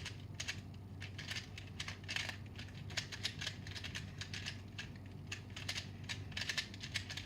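Shizheng 2x2 speedcube being turned rapidly by hand: a quick, irregular run of plastic clicks and clacks as the layers snap round, with short swishing bursts.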